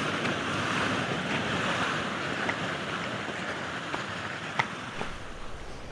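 Sea surf washing on a rocky shore, a steady hiss that slowly fades. Wind rumble on the microphone rises near the end, and there is a sharp click about four and a half seconds in.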